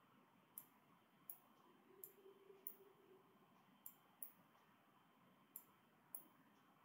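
Computer mouse button clicks, about eight short, sharp clicks at uneven intervals, against near-silent room tone.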